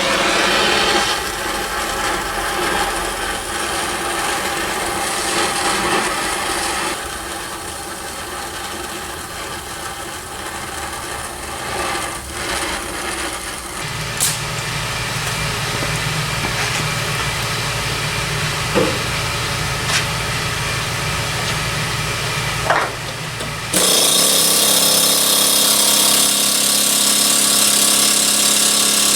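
Shop tools working on seized Mustang sway bar end link hardware: continuous noisy tool sound that changes character several times, with a few sharp clicks. It is loudest and hissiest in the last five seconds, then stops abruptly.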